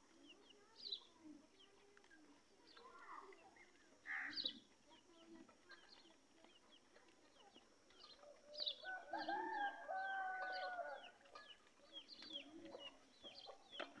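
Soft short chirps and calls from a pair of penned francolins (teetar), with a louder call about four seconds in and a drawn-out call of about two seconds near the middle.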